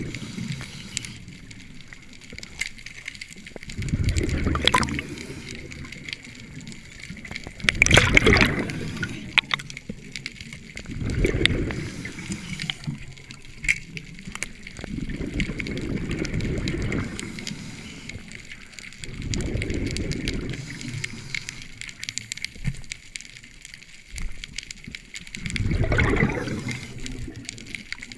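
Scuba regulator breathing underwater: exhaled air bubbling and gurgling out in swells that come back every three to four seconds.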